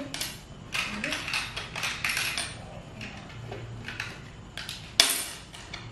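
Plastic toy cash register and its play pieces being handled: a quick run of clicks and clatter over the first couple of seconds, then one sharp knock near the end.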